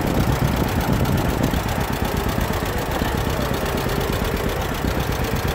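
1936 John Deere two-cylinder tractor engine idling, with a steady, even beat.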